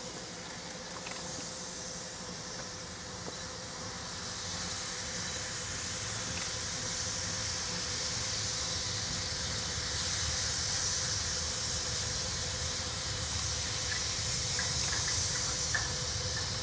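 Small industrial saddle-tank steam locomotive working a loaded wagon train, a steady hiss of steam over a low rumble, growing louder from about four seconds in as it comes closer.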